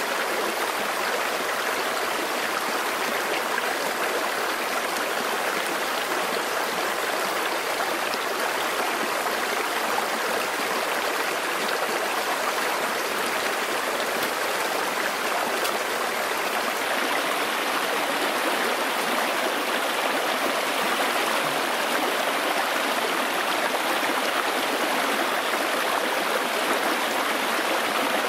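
Shallow rocky stream rushing steadily over and around stones.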